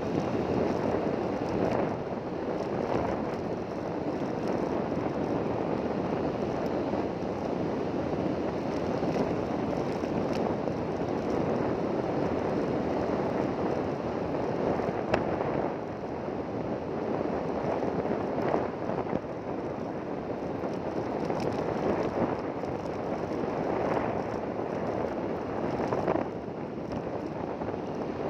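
Steady engine noise of a vehicle under way, with wind rushing over the microphone.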